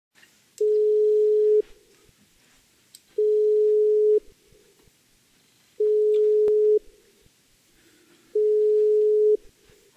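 Telephone ringback tone: four steady one-second beeps at one low pitch, about two and a half seconds apart, the sign that the line is ringing at the other end and the call has not yet been answered.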